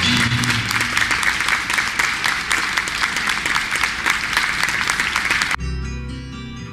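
Audience applause, many hands clapping together. About five and a half seconds in it cuts off suddenly and plucked acoustic guitar music begins.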